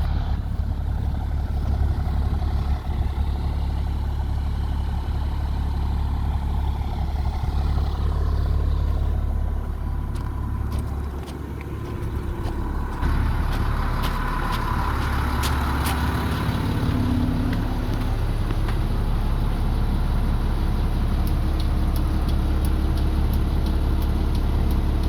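Diesel engine of a 2001 Blue Bird International school bus idling with a steady deep rumble. It drops quieter for a couple of seconds about halfway through, then comes back with a few sharp clicks.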